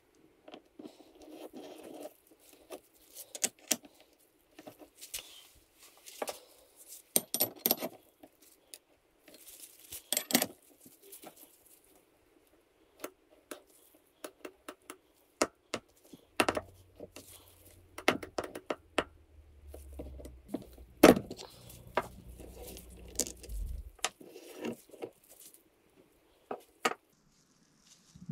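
Steel hand tools clinking and clicking: a seal-press tool being undone with a spanner, lifted off a bicycle hub and set down on a workbench, in scattered sharp metallic knocks. A faint low hum runs for several seconds past the middle.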